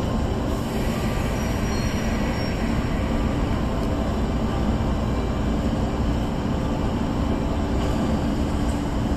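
JR 381-series electric express train rolling slowly along the platform, a steady low rumble with a constant hum.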